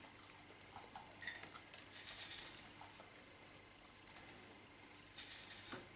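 Faint rattling and clicking of loose akadama–kiryuzuna bonsai substrate grains being heaped over roots, with two short spills: one about two seconds in and one near the end.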